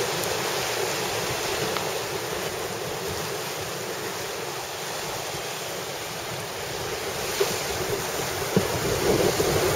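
Water rushing and churning in a sailboat's foaming stern wake as it sails fast in a 20–25 knot breeze, with wind buffeting the microphone. The rush is steady, getting louder near the end.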